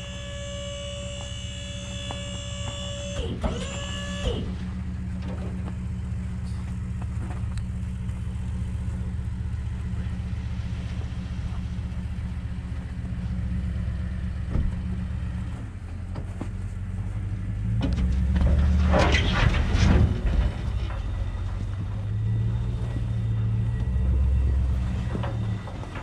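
The dump trailer's electric-hydraulic lift pump whines steadily for about three seconds, then shuts off with a slide in pitch. A pickup engine idles low underneath throughout, and a loud rush of noise comes about two-thirds of the way through.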